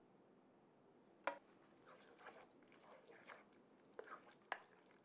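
Faint wet stirring of thick béchamel into ground-meat sauce with a wooden spoon in a skillet. There is a sharp knock about a second in and a few lighter clicks and scrapes of the spoon against the pan.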